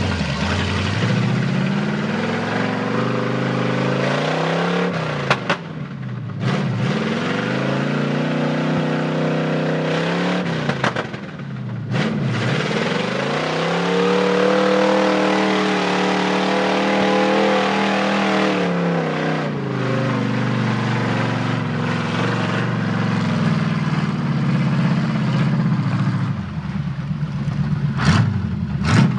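The engine of a lifted 1976 Chevy pickup on 46-inch Baja Claw tyres revs up and down several times as it churns through a muddy pond. The longest, highest rev comes about halfway through. Muddy water splashes around the tyres.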